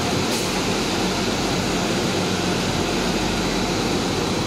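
A running plastic hollow corrugated sheet extrusion line: a steady mechanical drone of motors and fans, with a low hum and a thin, constant high whine.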